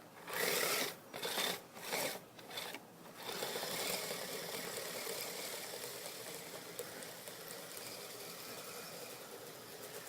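Radio-controlled Kyosho Blizzard SR snow vehicle running: its electric motor and track sound in about five short throttle bursts, then run on steadily from about three seconds in, slowly fading.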